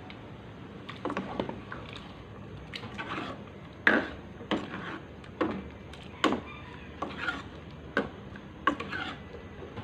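Metal ladle stirring coconut milk curry in a metal wok, knocking against the pan's side about a dozen times at an uneven pace, with wet swishing of the liquid between knocks.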